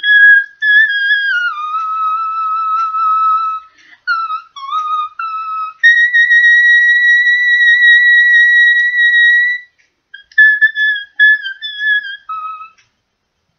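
A woman's voice singing a melody in the whistle register: very high, pure, flute-like notes that step up and down in short phrases. About six seconds in she holds one long high note for nearly four seconds, then a last short phrase stops shortly before the end.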